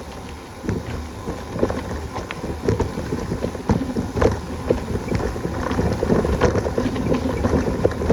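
Rushing waterfall water with wind buffeting the microphone, a dense rumbling wash with splashy crackles that grows louder about half a second in.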